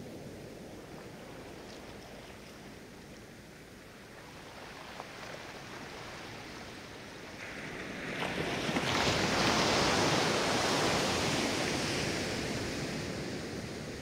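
Small sea waves breaking and washing up a sandy beach: a low steady wash, then one wave breaks about eight seconds in, swells to the loudest point and slowly fades as it runs up the sand.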